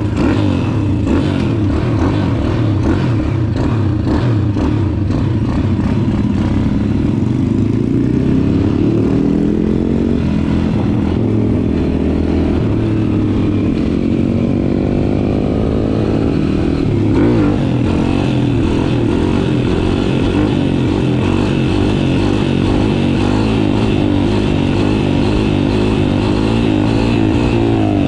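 Thumpstar 140 pit bike's single-cylinder four-stroke engine running under way. Its pitch climbs steadily for several seconds as it revs up, then drops suddenly a little past halfway and carries on steady.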